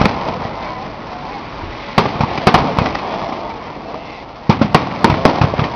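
Aerial firework shells bursting in volleys of sharp bangs: one at the start, a cluster of three about two seconds in, and a quicker run of five or six from about four and a half seconds.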